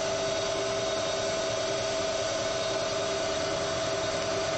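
Vertical milling machine's spindle and motor running at a steady speed: an even hum with two steady tones.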